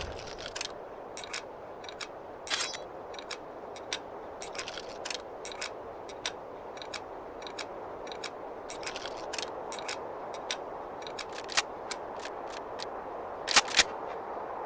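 A series of light, irregular clicks and ticks over a steady hiss, with a louder double click near the end.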